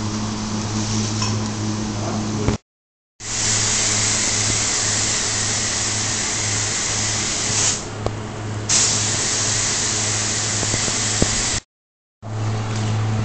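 Air spray gun hissing steadily as it sprays paint onto a glass panel, with a steady low hum underneath. The hiss dips for about a second some eight seconds in. Twice it cuts to brief dead silence, near 3 s and near 12 s.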